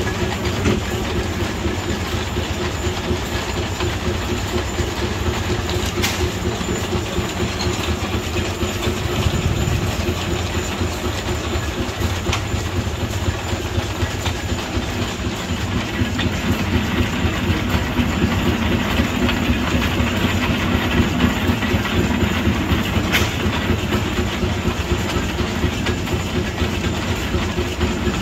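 An old lathe driven by flat belts and pulleys from overhead line shafting, running with a steady fast clatter. It grows a little louder about halfway through.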